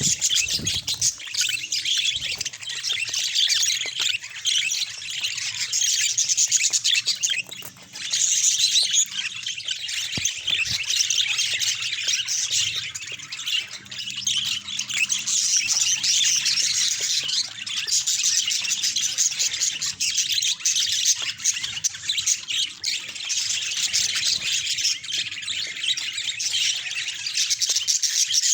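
Budgerigars chattering and warbling without pause, a dense stream of high chirps and squawks, with a short lull about eight seconds in.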